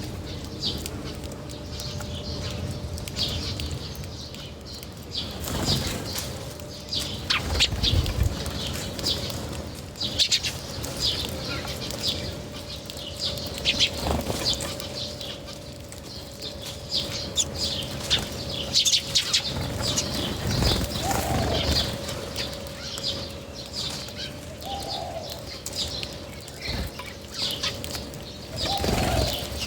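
A flock of birds at a feeder: wings flapping, many quick chirps and pecking clicks, and a few short rising-and-falling calls.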